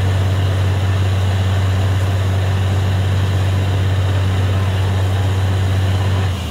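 Truck-mounted borewell drilling rig running hard, its engine and air compressor giving a loud, steady deep drone under the hiss of water and mud being blown up out of the borehole. The engine note drops to a lower pitch just before the end.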